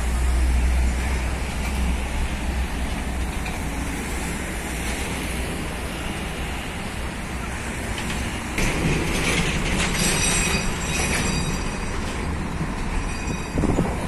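Heavy Scania trucks, one hauling an excavator on a lowbed trailer, rolling slowly towards the listener with a steady engine rumble. About eight and a half seconds in, the sound grows louder and a high metallic squeal joins in.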